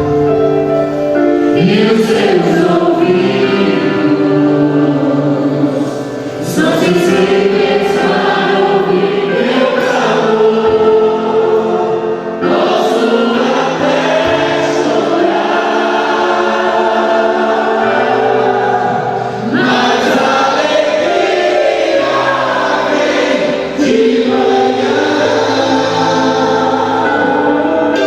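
Christian worship music: a group of voices singing a gospel song over steady instrumental accompaniment.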